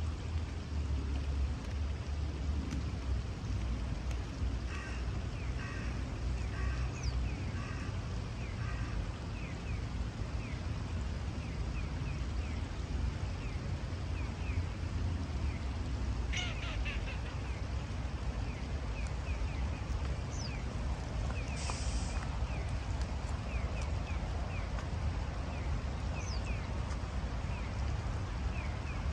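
Riverside ambience: a steady low rumble under the even rush of shallow river water, with ducks quacking in a short run of calls about five to nine seconds in and short bird calls scattered throughout. A brief sharp sound comes about sixteen seconds in and a short hiss about twenty-two seconds in.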